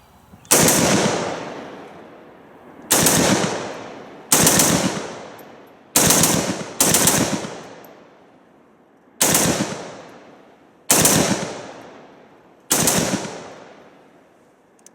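SIG716 semi-automatic rifle in .308 firing eight loud reports. They come as quick trigger pulls a second or two apart, two of them close together near the middle, and each report echoes and fades over about a second.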